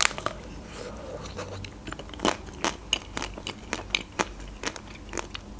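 Close-up eating sounds: the chocolate coating of an ice cream bar on a stick cracks under a bite, then crunches in a string of sharp, irregular cracks as it is chewed. The first bite is the loudest.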